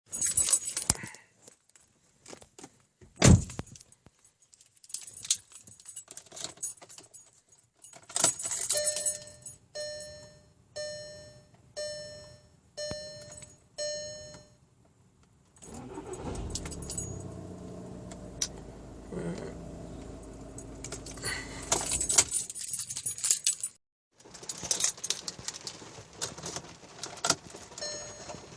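Keys jangling and clicking, then a car's warning chime sounding six times, about once a second. The Volkswagen Mk6 TDI's diesel engine then starts and runs steadily for several seconds before cutting off abruptly. The keys rattle again and the chime starts once more near the end.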